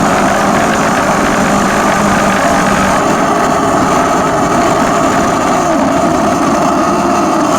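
Sur-Ron electric dirt bike running, with a steady drivetrain noise and an intermittent rattle: the drive chain hitting the swingarm. After the upgrade to a 58-tooth rear sprocket, the chain runs close enough to the swingarm to eat through its rubber guard.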